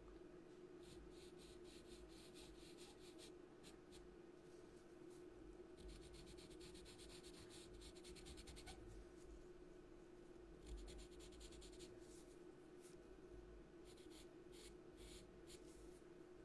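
Faint scratching of a pencil stroking on paper, in runs of quick strokes that start and stop, over a steady low hum.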